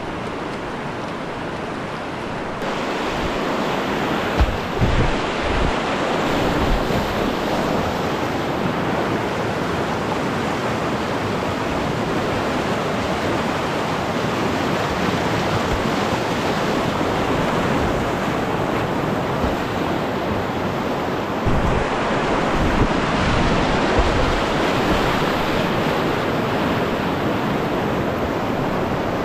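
Rushing river whitewater: a steady, dense hiss of moving water that grows louder about three seconds in, with a few low knocks or buffets on the microphone around five seconds in and again a little past twenty seconds.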